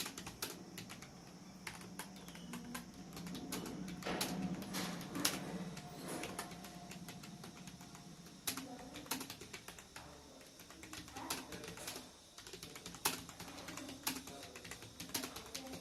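Computer keyboard typing: irregular keystrokes in quick runs, as in a timed typing test.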